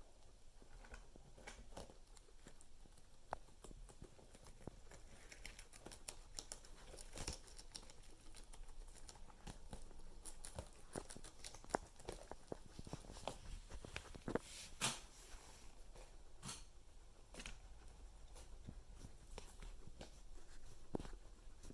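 Guinea pigs moving about and nibbling in their enclosure: faint scattered rustling and small clicks, with a few sharper clicks past the middle.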